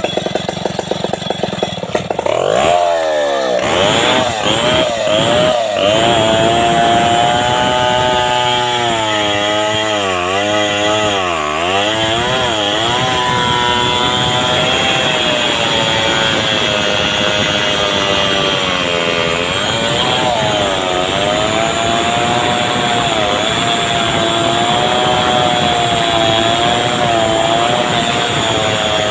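Two-stroke chainsaw making a felling cut at the base of a large bendo tree trunk. After some quick revs about two seconds in, it runs at high throttle in the cut, its pitch sagging and recovering as the chain bogs down in the wood.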